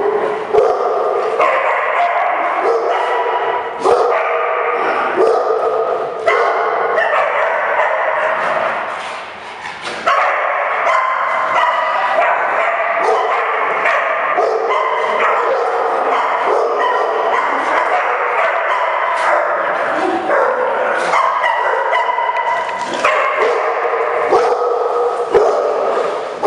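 Dogs barking and yipping almost without pause as they play, the calls overlapping, briefly letting up about nine seconds in.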